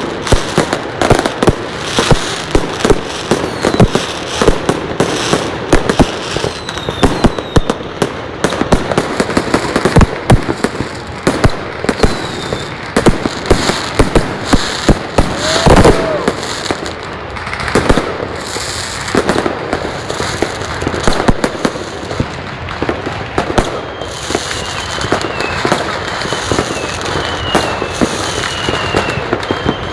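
New Year fireworks going off nonstop: a dense run of sharp bangs and crackles, with a very loud bang about halfway through. Short falling whistles sound every second or so near the end.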